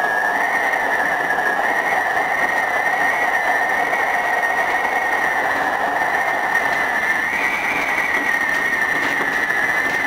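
Osaka Metro 66 series electric train running steadily at speed, heard from inside behind the cab: an even rush of wheel and running noise with a steady high whine that wavers slightly in pitch.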